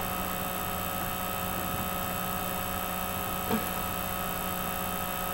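Steady electrical hum and hiss from the recording setup, with one faint, brief sound about three and a half seconds in.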